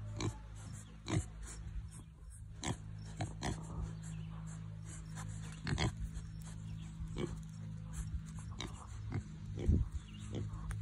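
Piglets grunting in short, separate grunts, about ten of them at uneven intervals, over a steady low hum.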